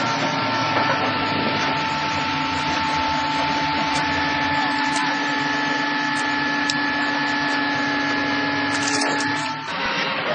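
Hydraulic excavator running a pile breaker: steady machine noise with a held hydraulic whine, several tones at once, which drops away about a second before the end as the sound shifts.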